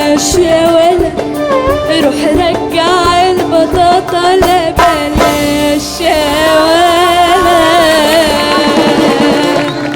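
Egyptian pop song with instrumental accompaniment and percussion, a singing voice among it; near the end a long note with a wavering vibrato is held for about four seconds.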